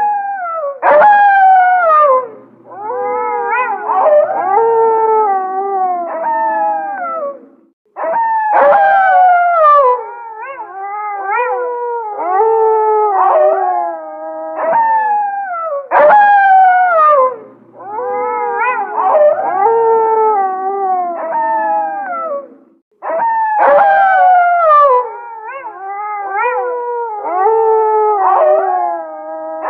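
A pack of gray wolves howling in chorus: several overlapping, wavering howls, many opening with a steep downward slide, with a short break about every eight seconds as the sequence starts over.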